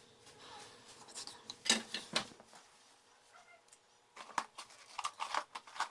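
Scattered sharp clicks and small scrapes of metal hand tools working on an engine computer's circuit board, a few single clicks and then a quicker run of them near the end.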